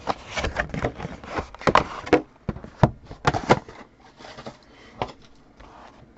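Trading cards and packs being handled: irregular short clicks and rustles as cards are flipped and slid against each other, busiest in the first few seconds.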